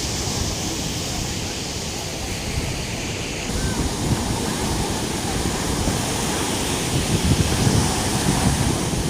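Storm surf: heavy sea waves breaking and washing, with wind buffeting the microphone. It gets louder and harsher about three and a half seconds in.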